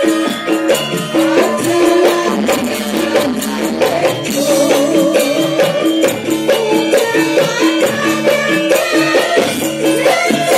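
Javanese gamelan ensemble playing, with interlocking ringing notes from the metallophones and regular drum strokes, while female sinden singers sing over it through microphones and a PA.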